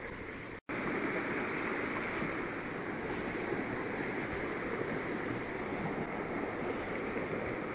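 Shallow, rocky stream running: a steady rush of flowing water, after a brief silent gap about half a second in.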